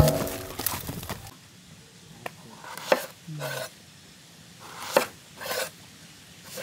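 A knife cutting brinjals (eggplants) for curry: a handful of separate sharp chops at uneven intervals, each a second or so apart, with short scraping sounds in between.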